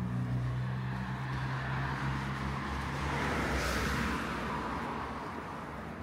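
A car driving past: a low engine hum with tyre noise on the road that builds to a peak a little after halfway through and then fades away.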